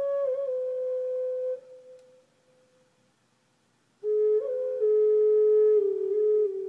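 Native American flute playing a slow melody: a held note with a short turn fades out about two seconds in, and after a pause of about two seconds a new phrase starts and steps down in pitch.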